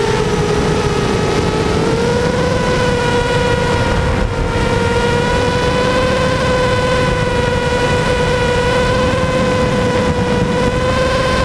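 Brushless motors and propellers of a ZMR 250 FPV quadcopter (Cobra 2000KV motors on 4S), heard from the onboard camera, whining at a steady pitch in fast low forward flight, with a brief dip about four seconds in and wind rush on the microphone underneath.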